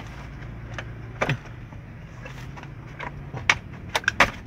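Plastic steering-column cover being pulled off a Canter truck's column: a couple of sharp plastic clicks about a second in, then a quick run of snaps near the end as its clips let go, over a low steady hum.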